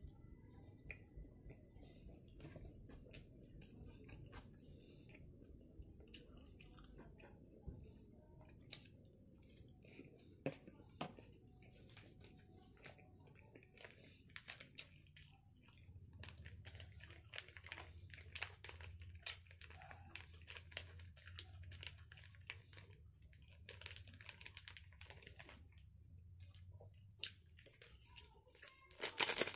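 Faint close-up eating: chewing with scattered small wet mouth clicks. Partway through, a small plastic sauce sachet is torn open and handled.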